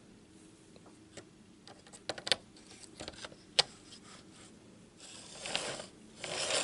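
A few sharp clicks and knocks as a Hornby Dublo N2 tank engine's metal chassis is set onto tinplate three-rail track. About five seconds in, a rattling starts and grows louder: the wheels and coupling rods running along the rails as the chassis is pushed by hand, a test of whether it runs freely without rough spots.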